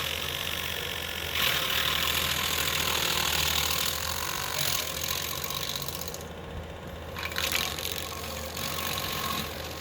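Skid steer engine running steadily, with swells of rushing noise that come and go from a stump grinder working.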